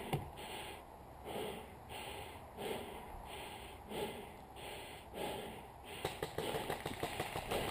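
A person breathing heavily at a steady pace, close to a head-worn camera microphone. From about six seconds in, small clicks and rustles of handled gear come in over the breathing.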